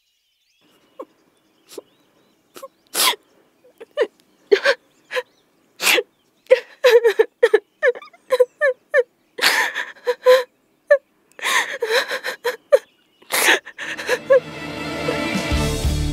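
A woman crying: repeated sharp sniffs and short sobs broken by pauses. Soft music comes in near the end.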